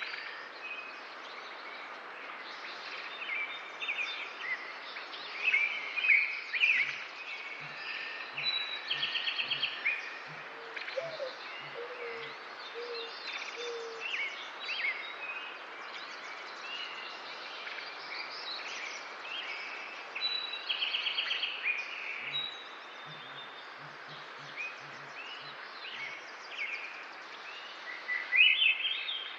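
A mix of wild birds calling and singing at once, many overlapping chirps with a couple of rapid trills and a few lower notes, over a steady outdoor hiss.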